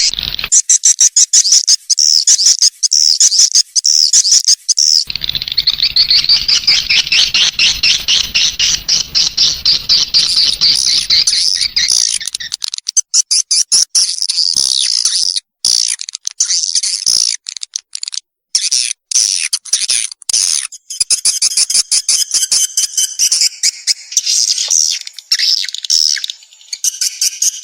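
Swiftlet lure-sound recording: dense, rapid, high-pitched twittering chirps of edible-nest swiftlets in fast repeated pulses, with a low hum underneath for several seconds. It is a call track played to attract young swiftlets into a new swiftlet house.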